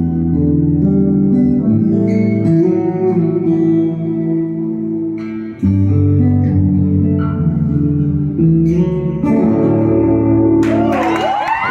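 Acoustic guitar played solo, ringing chords and melody notes with a short break about five and a half seconds in. Near the end a crowd breaks into cheering and shouts over the last notes.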